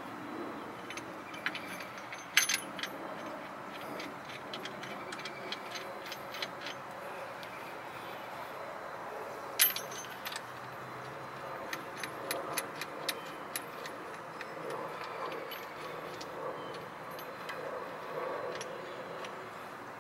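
Scattered light metallic clicks and clinks of hand work with tools at a CV axle's inner joint by the transmission, over a steady low hiss. Two sharper clinks stand out, about two seconds in and near the middle, followed by a run of quick ticks.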